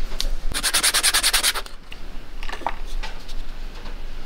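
Scissors working the plastic nozzle of an empty container: a run of quick, evenly spaced rasping strokes, about a dozen in a second, followed by a few light clicks.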